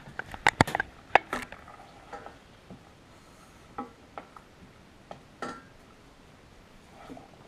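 Wooden spoon knocking and clinking against a metal saucepan while stirring: a quick run of knocks in the first second and a half, then a few single knocks spaced a second or two apart.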